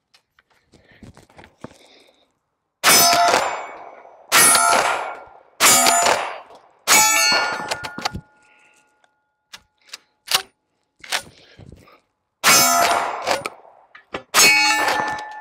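Six shots of full-power 00 buckshot from a Dickinson Commando 12-gauge pump-action shotgun. Four come in quick succession about a second and a half apart, then there is a pause of several seconds with a few sharp clacks of the pump action working as a shell hangs up, then two more shots.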